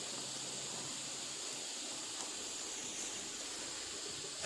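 Steady hiss of a water spray dousing a bonfire, the nozzle set to a fine jet like a fire extinguisher's.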